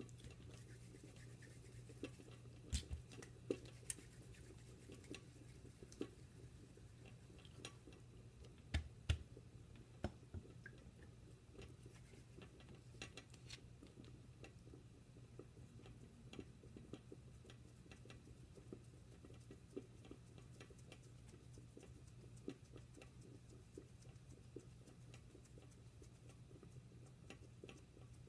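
Faint handling sounds of hands rolling and pleating modak dough over a sheet: scattered soft clicks and taps, a few sharper ones in the first ten seconds, over a steady low hum.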